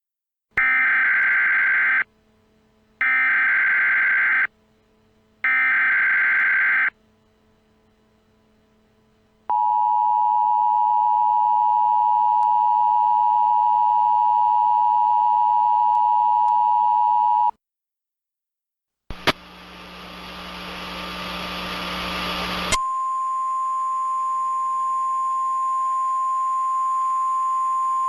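Emergency Alert System tones: three short, buzzy bursts of SAME data header, then the two-tone EAS attention signal held for about eight seconds. After a short gap comes a burst of static that swells, then a steady single-pitch alert tone.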